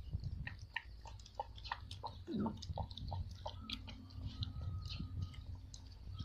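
Puppy lapping liquid from a plastic bowl: a run of short wet clicks, about three a second.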